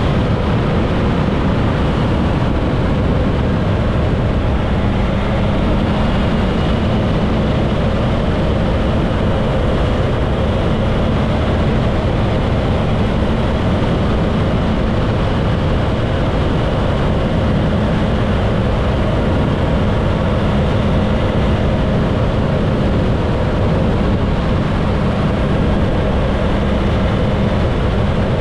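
Motorcycle cruising at a steady speed, its engine holding an even note under heavy wind rush over the microphone.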